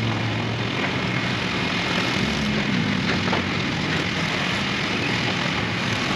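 Heavy engine running steadily, a low, unbroken drone over a constant rush of outdoor noise.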